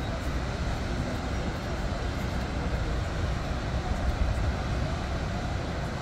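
Waterfall of the Paterson Great Falls on the Passaic River rushing: a steady, unbroken noise of falling and churning water, strongest in the low end.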